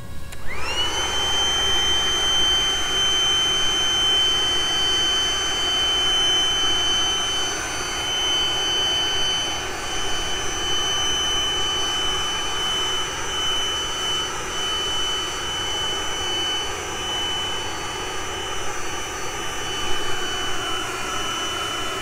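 Handheld electric leaf blower switched on: its whine rises and settles within about a second, then it runs steadily at full blast, the level wavering a little as it is swung.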